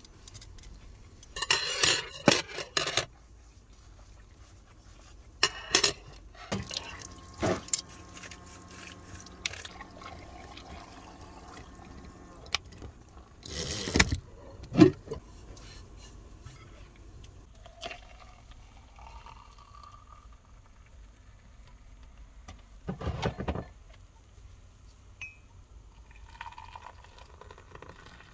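Washing up by hand in a shallow bowl of water: metal spoons, forks and a knife clink against each other and the bowl, with small splashes, in separate bursts with quieter stretches between. The loudest clatter comes about halfway through.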